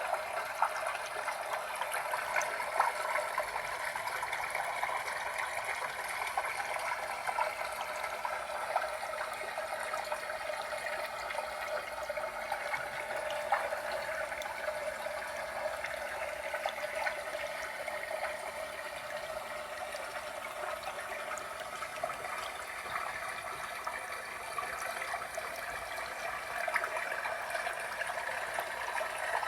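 Small tabletop waterfall fountain: water trickling and splashing steadily, with many small drips.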